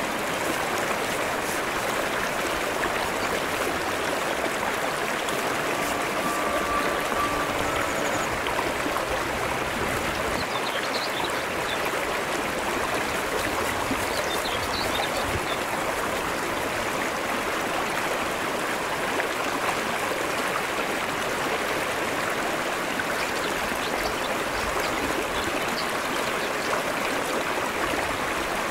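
Shallow brook flowing over a rocky bed, a steady, even rush of running water.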